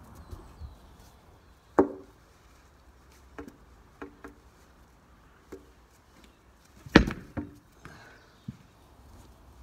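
A plastic cricket bat knocking several times as it is tapped down at the crease in the batting stance, then a louder knock about seven seconds in, followed by two smaller ones.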